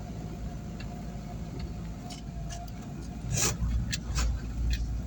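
A motor vehicle runs with a steady low rumble. Several sharp clicks and knocks come in the second half.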